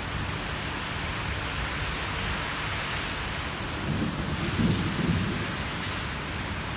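Steady rain falling during a thunderstorm, with a brief low rumble of thunder about four seconds in.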